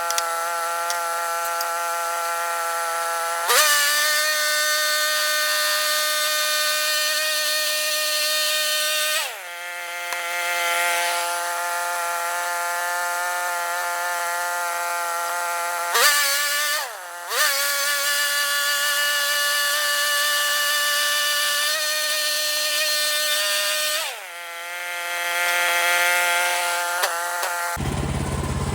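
Band sawmill's engine running steadily while the blade cuts white oak. Its pitch drops and holds lower twice as the blade takes the load, then climbs back each time the load comes off. Near the end a lower engine note takes over.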